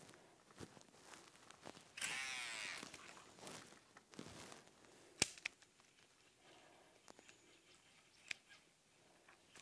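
A topwater frog lure being twitched across still swamp water, making faint sharp little pops and clicks, the clearest a bit after five seconds in and again about eight seconds in. A short wavering, call-like sound stands out about two seconds in.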